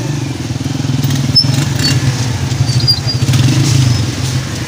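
Several small commuter motorcycles riding slowly past, their engines running loudly and steadily.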